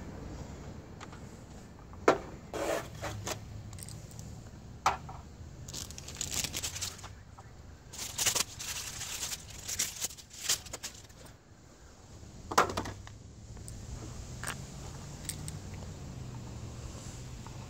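Hands handling a plastic oil filter housing cap and a paper cartridge oil filter: scattered sharp clicks and knocks, with several bursts of crinkly rustling in the middle.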